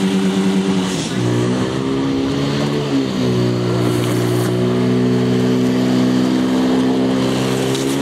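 Portable fire pump engine running at high revs, pumping water out through the hose lines. Its pitch shifts about a second in, drops about three seconds in, and then holds steady.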